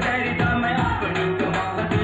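A song with a singing voice, bass and drum beat, played back from a tape through the Begton ST 7000 VC stereo cassette player's speakers.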